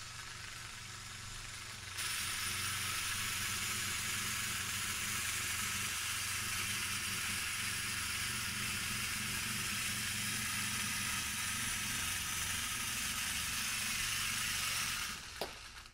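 A homemade vibration-drive cart running: a small electric motor belt-drives an eccentric rotor weighted with a screw, giving a steady hum under a rattling, shaking noise as the cart vibrates on the table. The noise gets much louder about two seconds in and stops shortly before the end.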